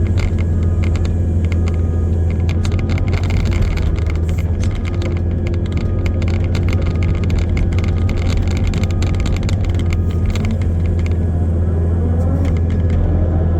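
Excavator's diesel engine running steadily at working speed, with a busy rattle of clicks and clanks from the machine as it works.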